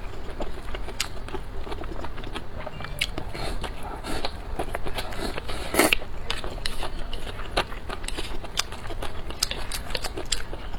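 Close-miked eating: irregular chewing and biting clicks and smacks, with one louder bite a little after the middle.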